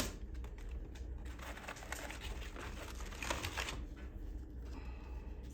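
Sandpaper rustling and tearing as the 150-grit disc is peeled off a small DA sander pad and an 80-grit disc is put on, in uneven scratchy bursts.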